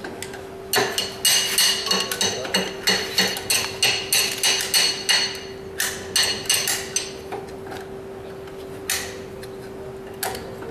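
Hammer striking metal on the underside of a car: a run of quick ringing blows, about three a second, for some six seconds, then two single blows near the end.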